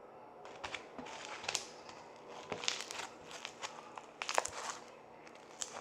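Hands squishing and poking slime, making irregular small pops, clicks and crackles in short clusters.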